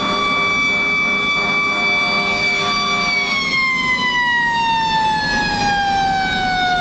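Fire engine siren holding a steady high pitch, then from about three seconds in its pitch slides slowly and evenly down.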